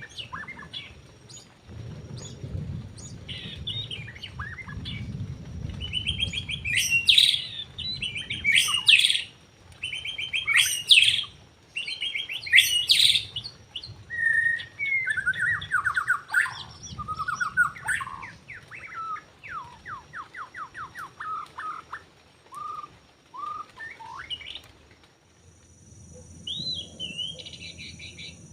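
White-rumped shama (murai batu) singing a varied song of loud whistled phrases and rapid trills, loudest in the middle, then a run of quicker trilled notes.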